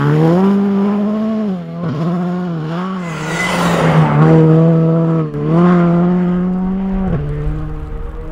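Skoda Fabia R5 rally car's turbocharged four-cylinder engine running at high revs as the car passes at speed, the engine note dropping sharply about 2, 5 and 7 seconds in and climbing again. A rushing noise swells with the engine as the car comes closest, about halfway through.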